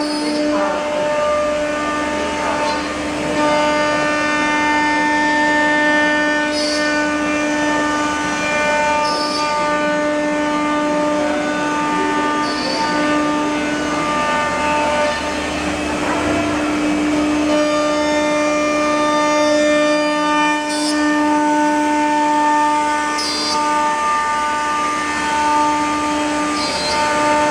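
CNC wood router's spindle running with a steady high whine as it cuts a wood panel, the pitch holding almost constant. Short hisses come through several times.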